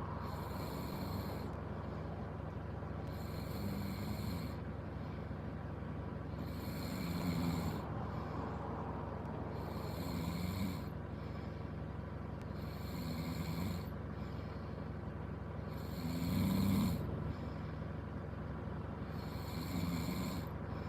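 A person snoring in a regular rhythm, one rasping snore roughly every three seconds, about seven in all, over a steady low hum.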